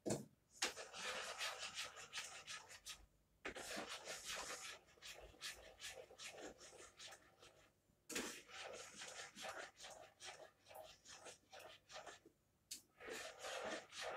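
A spoon stirring and scraping around a saucepan of soup: runs of quick rubbing strokes broken by brief pauses.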